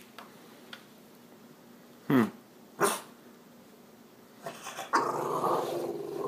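French Bulldog barking at its owner for attention: two sharp barks about two seconds in, a few short yips, then a long, continuous growling grumble starting about five seconds in.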